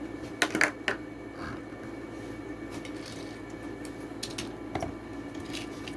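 Plastic blister packaging crackling and clicking in sharp, irregular snaps as a Hot Wheels die-cast car is pried out of its card, over a faint steady hum.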